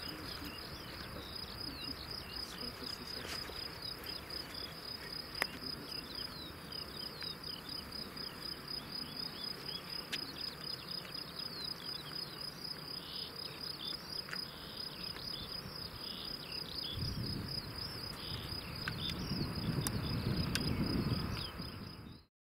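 Crickets chirping in a steady, fast-pulsing high trill. A low rumble swells in the last few seconds, and then all sound cuts off abruptly.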